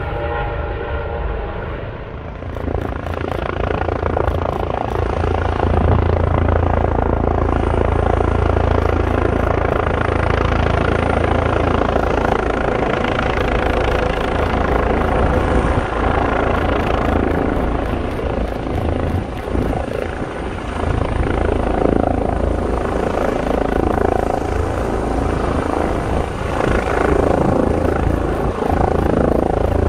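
Several Airbus EC135 and H145 twin-turbine police helicopters running close by as they hover and come in to land: loud, steady rotor noise with a high turbine whine above it.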